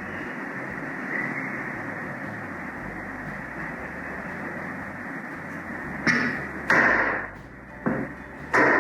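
A steady hiss for about six seconds, then four sharp knocks in the last three seconds, from wooden pieces of the stone holder being knocked and clamped into place during glue-up.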